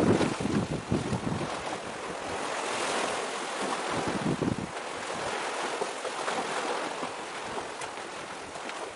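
Wind buffeting the microphone in gusts, strongest near the start and around four seconds in, over a steady wash of sea waves.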